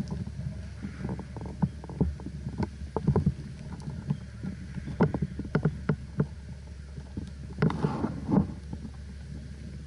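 Irregular knocks and clicks over a steady low rumble, typical of handling and movement noise on a worn action camera.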